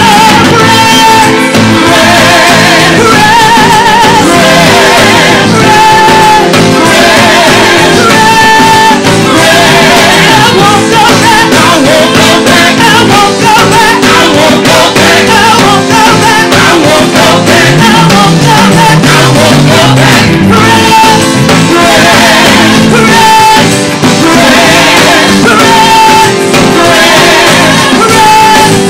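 Live gospel praise-and-worship music: a band playing with singers, loud and continuous, the voices holding long wavering notes.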